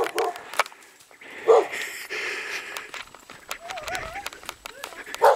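Hurried footsteps crunching over rocks and through dry brush and twigs, with many crackles and snaps. Short loud calls break in three times: near the start, about a second and a half in, and at the end.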